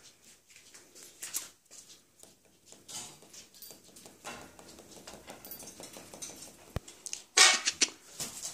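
A white cockatoo clambering over its cage, its claws and beak scratching and clicking on the metal wire and perches, with a sharp click shortly before a louder rustling burst near the end.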